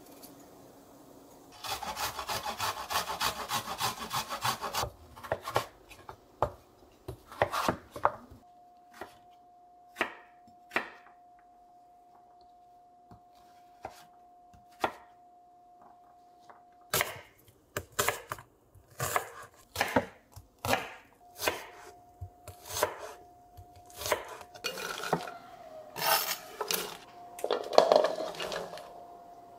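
Kitchen knife cutting pumpkin on a wooden cutting board. A few seconds of fast, dense cutting near the start give way to single cuts about a second apart, then quicker cuts. Near the end comes a louder tumble as the cubes are tipped from a bowl into a slow cooker's pot, with a faint steady tone underneath.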